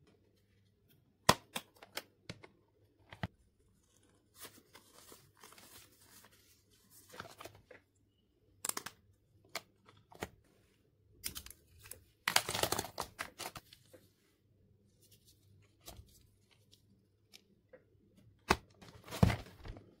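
Stationery being packed into a plastic pencil box: sharp plastic clicks and taps as pieces are set in place, with stretches of paper and plastic rustling and sliding. Near the end a click and a cluster of knocks as the box is closed.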